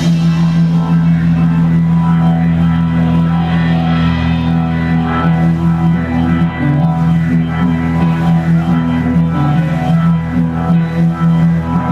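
A live blues-rock band playing, with long held low notes and few clear drum strokes.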